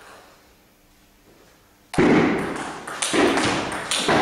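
Table tennis rally: a celluloid ball knocking off bats and the table. After a quiet first half come a few sharp, loud knocks about a second apart.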